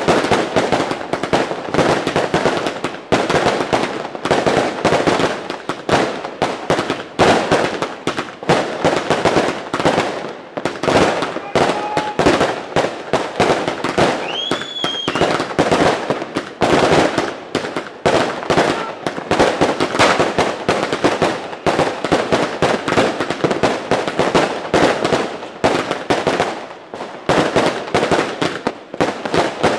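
Fireworks and firecrackers going off without pause, many sharp bangs and crackles overlapping in a dense barrage. About halfway through, a short whistle sounds above the bangs.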